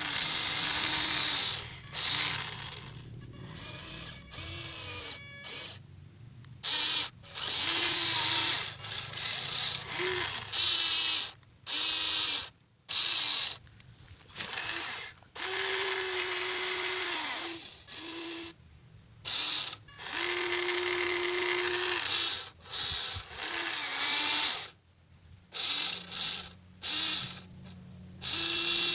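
Huina 1593 RC excavator's small electric motors and gearboxes whining and grinding in short stop-start bursts, each lasting from under a second to about two seconds, as the machine's functions are run one after another.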